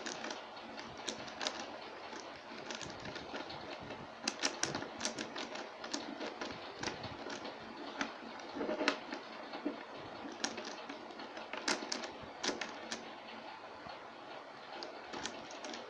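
Plastic clicks and clacks of a Shengshou Megaminx's faces being turned by hand in an algorithm (a T-perm), irregular and in quick runs. The puzzle catches and locks up now and then.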